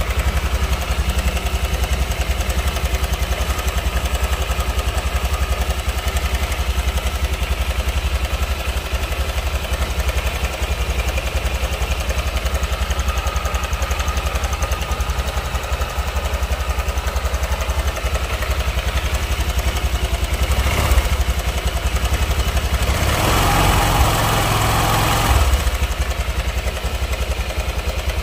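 Honda Vario scooter's single-cylinder four-stroke engine idling with a rough, clattery running sound, which the mechanic puts down to a worn cam chain tensioner. A louder noise rises over it for about two seconds near the end.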